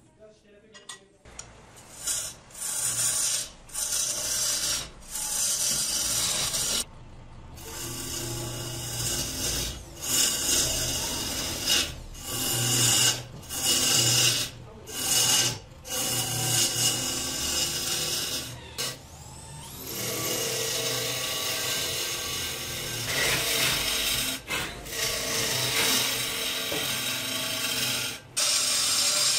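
Wood lathe spinning a tree-root plate blank while a long-handled gouge cuts into it, over the lathe motor's steady hum. The cutting noise comes in repeated bursts of one to two seconds with short breaks as the tool is lifted off and set back on the wood.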